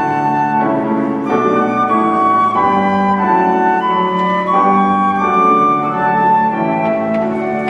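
Church orchestra playing, with held notes and chords that change every second or so.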